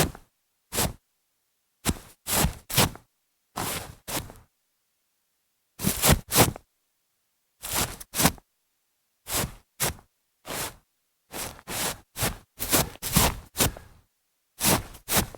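Feet shuffling through grass: a series of short brushing scuffs, coming irregularly and often in pairs or threes, with brief pauses between them.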